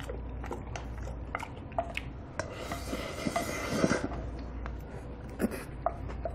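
A brass spoon scraping and clinking against a brass bowl as the last food is scooped out, with a denser run of scraping in the middle and a few short ringing clinks.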